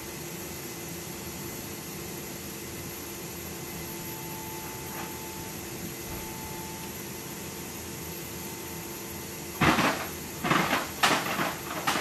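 C-17 Globemaster III's rear cargo ramp and door closing: a steady hum while it moves, then a run of loud clanks and bangs about ten seconds in as it seats and locks shut.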